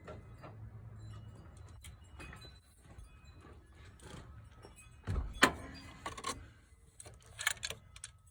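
Metal hand tools clinking and clicking against each other and the engine's alternator bracket during wrenching, with a louder knock about five seconds in.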